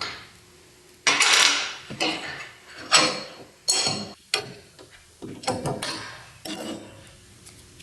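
A series of sharp knocks and short scrapes, about seven in all, each dying away quickly with quiet gaps between: workshop handling of tools and wood. No saw motor is running.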